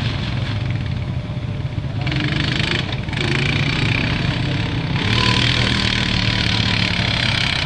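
Utility ATV (quad bike) engine running steadily as the quad rides along a sandy track. A louder hiss joins about two seconds in and again from about five seconds on.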